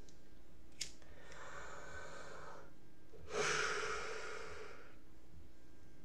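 A man breathing close to the microphone: a short click about a second in, then a soft breath, then a louder breath out like a sigh, fading out.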